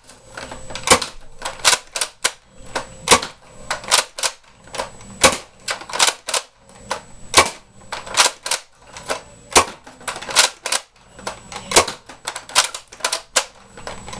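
Nerf spring-powered bolt-action dart blaster being cocked and fired over and over: a quick, uneven run of sharp plastic clacks, two or three strong ones a second with lighter clicks between.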